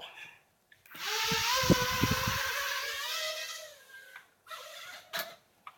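Small toy quadcopter drone's motors and propellers whining as it flies, a steady high whine with a hiss that lasts about three seconds, then fades out.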